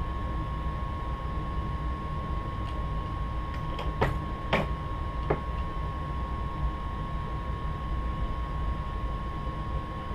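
Steady workshop hum with a constant tone. About four to five seconds in come three sharp metallic clicks from a single-stage reloading press being cycled, belling the mouth of a .44 Magnum brass case in the expanding die.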